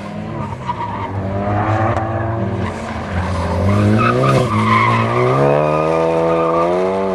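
Car engine on an autocross course, revving up and down as the car accelerates and slows through the course; the pitch drops sharply about four seconds in, then climbs again.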